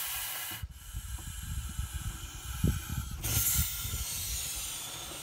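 Bullsnake hissing in defence, long forceful hisses with a brief break about half a second in, growing stronger about three seconds in. The hiss is its imitation of a rattlesnake, meant to make predators think it is one.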